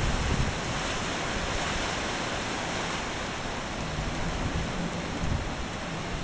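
Tropical-storm wind blowing hard and steadily, with low buffeting of the gusts on the microphone.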